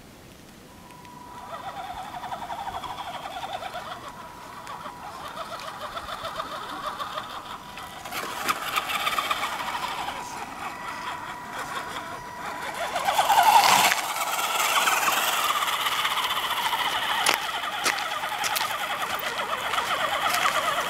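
Electric motor and gear train of an Axial SCX10 RC rock crawler whining as it crawls over rock, the pitch rising and falling with the throttle. Scattered sharp clicks run through it. It starts about a second in and is loudest about two-thirds of the way through.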